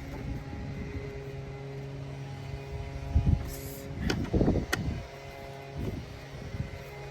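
A steady low mechanical hum, like a running vehicle engine nearby, with a few knocks and sharp clicks from hand tools on metal a little past the middle.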